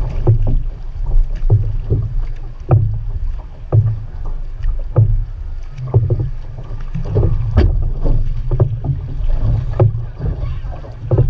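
Outrigger racing canoe under way with the crew paddling: water rushing and slapping against the hull, with irregular sharp splashes about once a second, over a heavy low rumble of wind buffeting the microphone.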